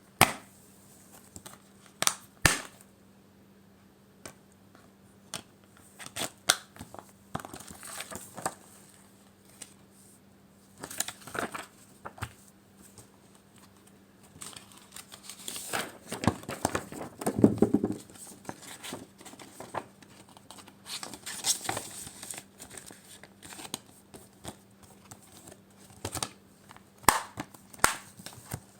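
Plastic packaging of a Blu-ray case being torn and crinkled, with scattered sharp clicks and snaps of plastic.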